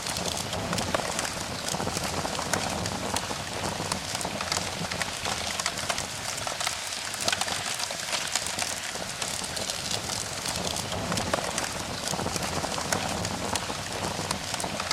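Steady hiss dotted with many small, sharp crackles and clicks throughout.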